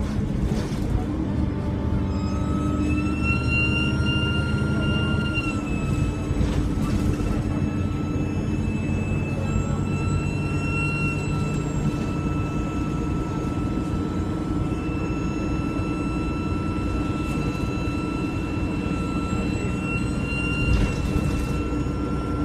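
Alexander Dennis Enviro300 bus underway, its turbocharger giving a loud, high, steady whistle over the low drone of the diesel engine. The whistle's tones fade and return a few times as the engine load changes.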